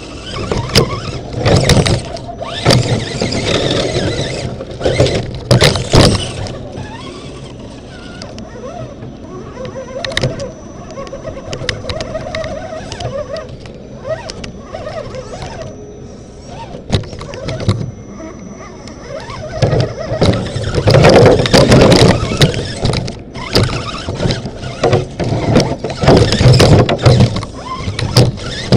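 RC rock crawler driving, heard from inside its body shell: electric motor and drivetrain whine with the shell rattling and knocking over the ground. Loud stretches come in the first few seconds and again in the second half, with a quieter, steadier stretch in between.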